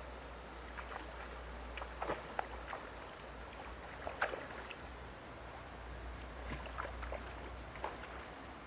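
River water splashing and gurgling in short irregular strokes over a steady low rumble; the strongest splashes come about two seconds and four seconds in.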